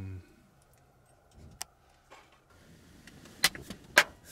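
Mostly quiet, with a faint hiss rising in the second half and a few sharp clicks inside a vehicle cab: one about a second and a half in and two louder ones near the end.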